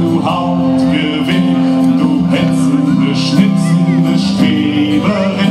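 Live band music with guitar, steady chords held for several seconds at a time.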